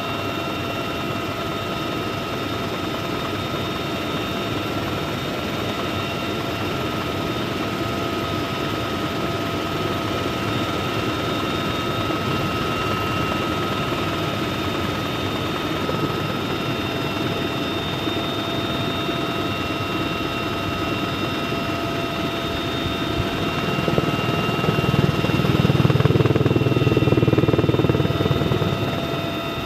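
UH-1Y Huey helicopter heard from inside its open-door cabin in flight: a steady rotor and engine din with a constant high whine over it. The din gets louder and deeper for a few seconds near the end.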